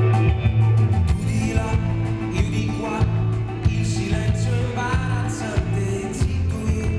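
Live pop-rock band playing over a held bass note, with drum hits coming in within the first second and a man's singing voice over them, heard from the audience.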